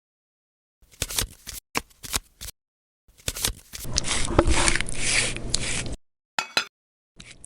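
Close-up food-preparation sounds in short edited snippets: a few quick clicks and scrapes, then a louder stretch of steady hiss with knocks lasting about two seconds.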